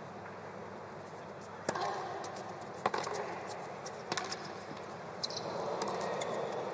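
Tennis rally: racket strokes on the ball, sharp hits roughly every second or so, over a low, steady crowd murmur.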